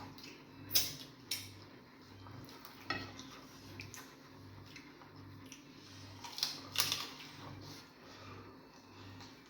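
Dishes and utensils clinking at a meal: a few scattered sharp knocks of bowls and plates, loudest about a second in and again near the end. A low hum pulses about twice a second underneath.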